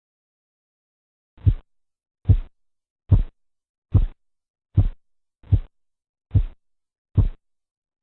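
Korotkoff sounds from the arm as the blood-pressure cuff deflates: silence, then eight regular pulse-beat thumps at a little over one a second, starting about a second and a half in. The first of these sounds marks the systolic pressure.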